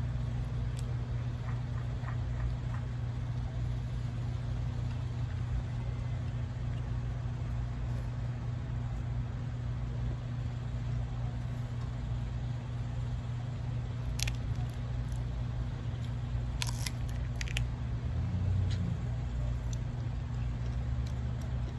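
A steady low hum runs throughout, with a few sharp clicks and crunches of shrimp shells being peeled and eaten, bunched in the last third.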